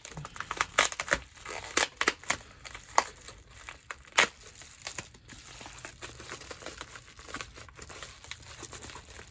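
A mailing package being torn open by hand, its paper and plastic wrapping crinkling and crackling in a run of sharp snaps, then settling into softer rustling about halfway through.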